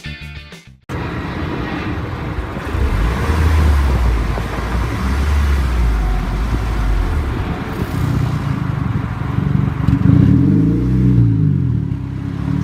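Honda Civic engine running through an exhaust fitted with an electric cutout: a steady low rumble, then revved up and back down once near the end.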